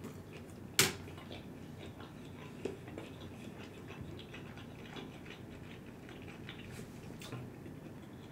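Close-up chewing of a mouthful of stir-fry noodles: soft, scattered wet mouth clicks and smacks, with one sharp click a little under a second in.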